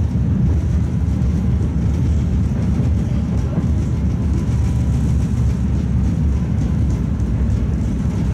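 Tatra T3 tram running along the line, heard from inside the car: a steady, loud low rumble.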